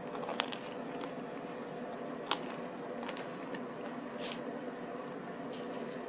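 A person chewing a mouthful of sandwich: soft, wet mouth sounds with a few short, sharp clicks.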